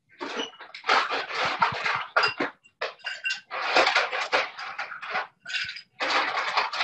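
Ice cubes clattering and clinking into a glass, in a run of irregular rattling bursts with a few ringing clinks.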